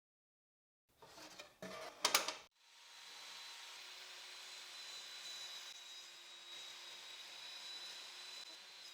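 A few handling knocks and clicks, then a power tool's motor spins up about two and a half seconds in and runs steadily with a thin high whine.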